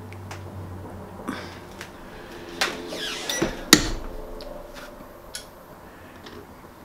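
WALAPress 15x15 clamshell heat press being pulled shut onto a shirt: a few metal clicks as the handle comes down, then one sharp clack a little before four seconds in as the upper platen clamps and locks.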